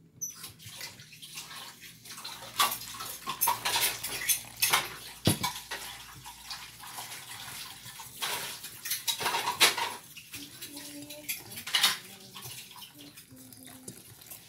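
A utensil stirring and scraping against a stainless steel mixing bowl of wet pancake batter, in spells of rapid clinking with short pauses between.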